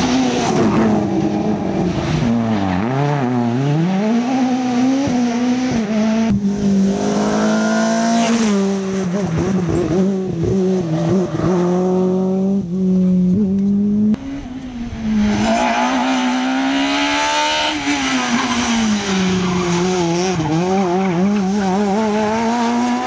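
Rally cars at full throttle on a tarmac test stage: a Ford Fiesta RS WRC and then a Skoda Fabia S2000, their engines revving up and dropping repeatedly through gear changes and braking for corners. The sound breaks briefly about two-thirds of the way in, where one car gives way to the next.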